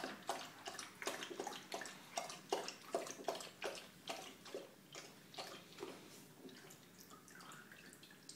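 A bird dog's muzzle splashing in shallow water in a foam cooler as it snaps at small fish, in quick repeated splashes about two to three a second that die away over the last couple of seconds.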